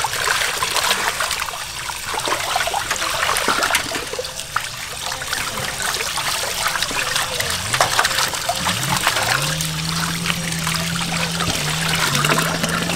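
Tap water pouring into a steel basin of water, splashing and sloshing as hands rub and lift slabs of raw pork and beef in it. A low steady hum slides up and then holds from about two-thirds of the way through.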